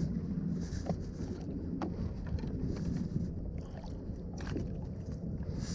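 Wind rumbling on the microphone over water lapping around a kayak, with a few light knocks.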